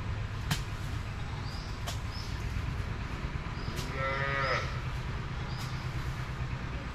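A farm animal calls once, briefly, about four seconds in, with a slightly bending pitch. Under it runs a steady low rumble, with small high chirps about once a second and a few sharp clicks.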